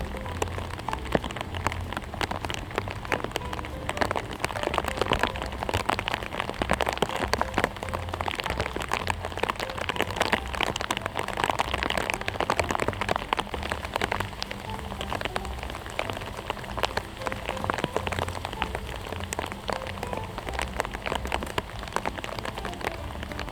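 Steady patter of rain, a dense stream of small ticks.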